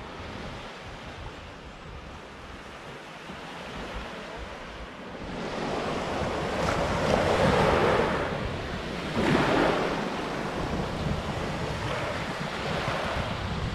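Sea waves breaking on the shore, with wind on the microphone; the surf swells up loudly about six seconds in and again at around nine seconds.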